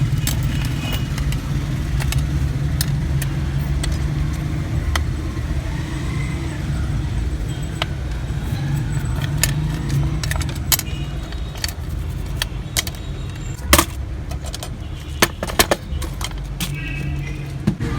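Small metal tools clicking and tapping on the parts of an Omega quartz watch under repair, many separate sharp clicks with a few louder ones about three-quarters of the way through, over a steady low hum.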